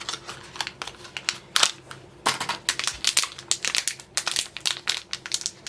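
Mystery pin blind-box packaging being torn and crinkled open by hand, with irregular crackles.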